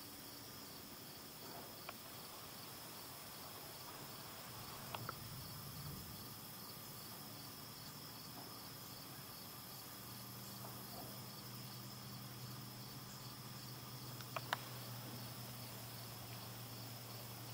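Crickets chirping in a steady, evenly pulsing chorus, with a few sharp clicks (the loudest about two-thirds of the way through) and a low steady hum that comes in about halfway.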